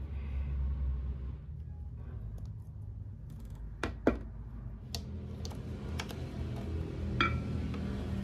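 Light plastic clicks and taps, about half a dozen from about four seconds in, as a plastic waffle maker and its power cord are handled and the unit is turned over. One click near the end has a short ring.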